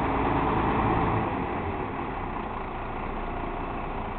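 Diesel engine of a hook-lift (arm roll) truck running steadily while the hydraulic hook arm hoists a roll-off container onto the truck. The sound drops a little in level about a second and a half in, then holds steady.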